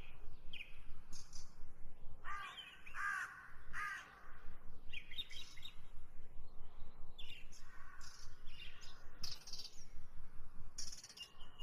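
A steel spoon scrapes and stirs onions and tomatoes frying in an aluminium pot. Birds call in the background, with a run of three harsh calls about two seconds in and more calls later on.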